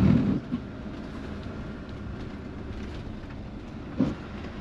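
Steady engine and road rumble inside the cab of a Fiat Ducato-based motorhome driving slowly on a wet road, with a short low thump right at the start.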